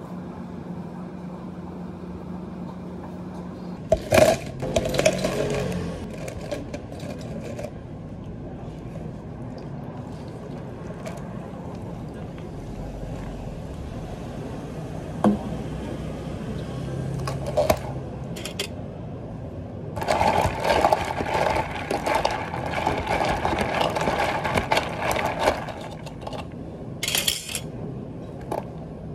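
Handling sounds of an iced passion fruit ade being made in a plastic cup, over a steady hum of café equipment. Ice clatters into the cup about four seconds in and sparkling water is poured over it. Later comes a few seconds of ice rattling in the cup, and a plastic dome lid is snapped on near the end.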